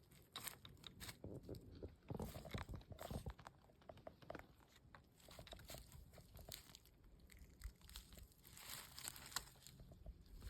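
Faint, irregular crunching and rustling of a southern brown kiwi foraging in leaf litter, denser about two seconds in and again near the end.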